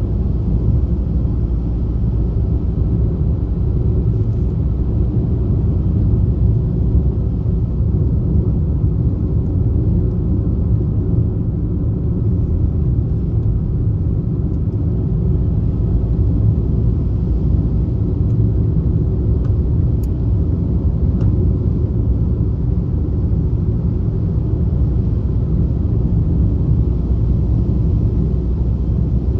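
Steady low rumble of a moving vehicle, even in level throughout, with a couple of faint clicks about two-thirds of the way through.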